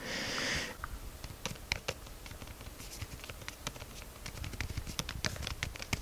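Keys of a Logitech Rugged Folio iPad keyboard case being typed on close to a microphone: soft, super subtle clicks at an irregular pace, several a second. There is a brief hiss at the very start.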